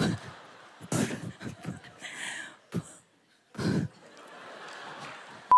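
Stifled laughter: several short puffs and snorts of breath as the singers try to hold back laughing. A steady electronic beep starts right at the end.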